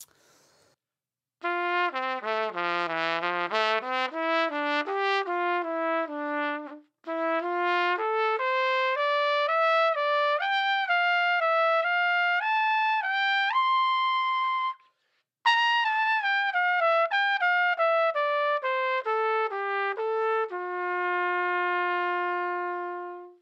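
A 1940s Martin Committee trumpet with an Austin Custom Brass Custom Reserve mouthpiece playing a phrase across its whole range. It starts low, climbs to a high held note, breaks for a breath, runs back down, and ends on a long held note that fades away.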